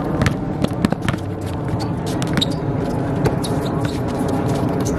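Players' footsteps and sneaker scuffs on an outdoor basketball court: many short sharp clicks and squeaks over a steady background din with faint voices.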